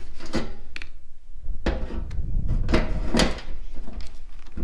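Power drill turning a hole saw through the sheet-steel top of a fuel tank, the teeth grinding and rattling against the metal in uneven bursts over the steady drill motor.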